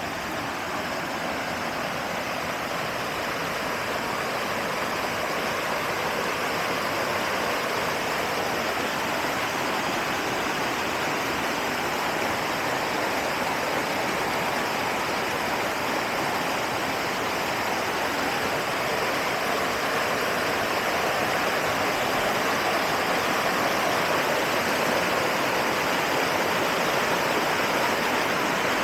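River water rushing steadily, growing a little louder over the first several seconds.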